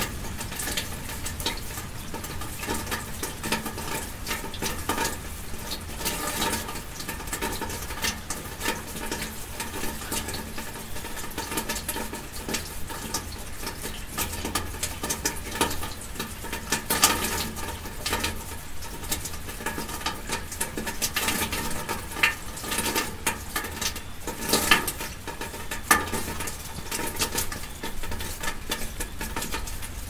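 Rain falling steadily, a constant hiss with irregular pattering of nearby drops and a few louder drop hits scattered through.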